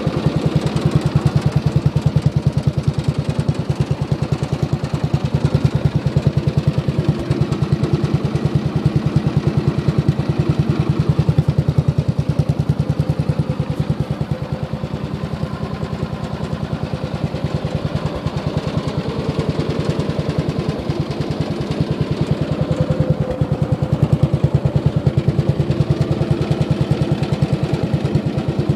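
Craftsman 10 HP riding mower engine running steadily, a little quieter in the middle and a little louder again near the end.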